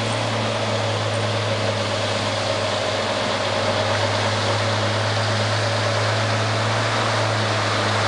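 Peterbilt 359 semi tractor's diesel engine running as the truck pulls slowly forward, black smoke from its stacks, a steady low drone.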